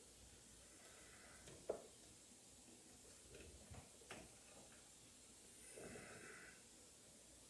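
Near silence broken by a few faint clicks and taps, the sharpest about two seconds in: desktop RAM modules being handled and their slot retaining clips worked.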